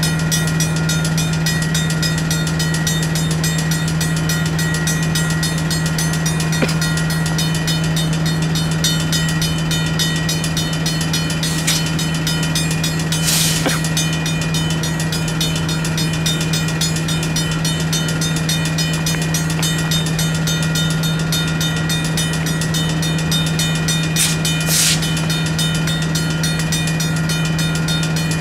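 Diesel switching locomotive running with a steady low hum, while railroad crossing bells keep ringing. Two short hisses come about halfway through and again near the end.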